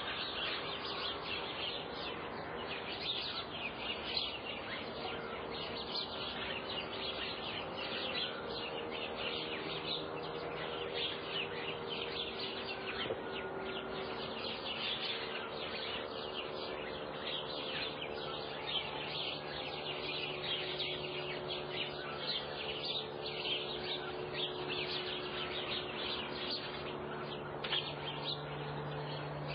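Dawn chorus of many small birds chirping continuously, a dense high twittering, with a faint steady low hum underneath.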